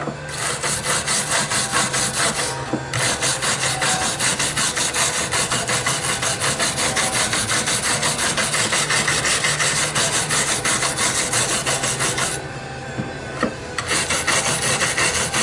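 Steel wire brush scrubbed rapidly back and forth along the cut teeth of a small metal file, about five scraping strokes a second, brushing rust and dirt out of the grooves. The scrubbing stops briefly about two and a half seconds in, and again for about a second near the end.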